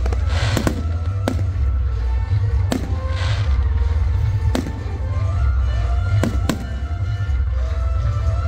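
Aerial fireworks shells bursting: about six sharp bangs at uneven intervals, two of them trailed by a brief crackle of sparks, over music playing throughout.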